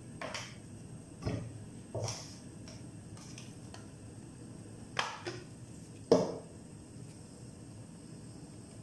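Kitchen clatter: about five scattered light knocks and clinks of utensils or cookware, the loudest about six seconds in, over a faint steady low hum.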